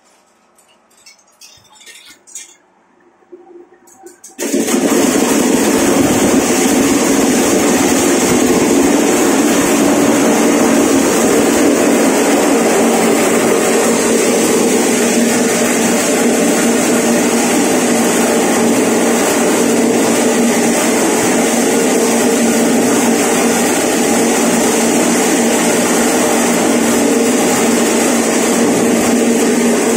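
Platinum PLT-SRMS150 mini maize sheller, driven by a 1.5 HP single-phase electric motor, starts suddenly about four seconds in and then runs loudly and steadily, an even mechanical hum and whirr.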